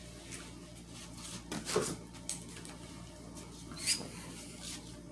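Faint, scattered rustles and light knocks as a diamond painting canvas is handled on a blanket, with two sharper taps about two and four seconds in.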